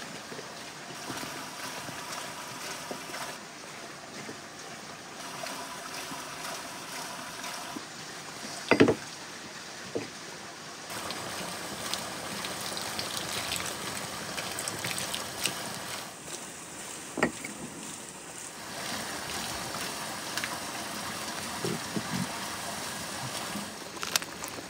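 Food sizzling and bubbling in a large steaming pan over a fire, a steady watery hiss. A few sharp knocks cut in, the loudest about nine seconds in and another about seventeen seconds in.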